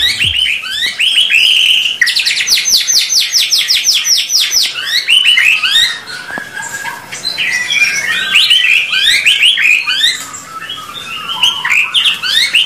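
A songbird singing a loud, varied song of quick chirps and whistled phrases, with a rapid run of evenly repeated notes about two seconds in.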